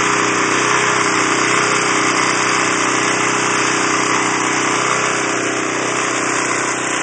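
Small snowblower engine running steadily, a constant hum under a dense rush of noise.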